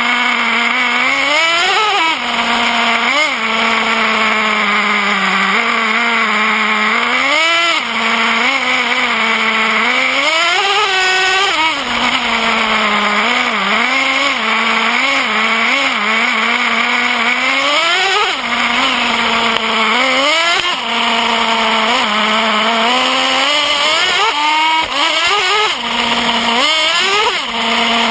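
Traxxas Revo nitro RC truck's small two-stroke glow engine, heard up close from a camera mounted on its chassis, revving up and dropping back again and again between short stretches of steady idle.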